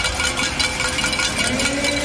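Steady hockey-arena ambience: a low hum and rumble under a general crowd murmur, with a few faint steady tones. A faint rising tone comes in near the end.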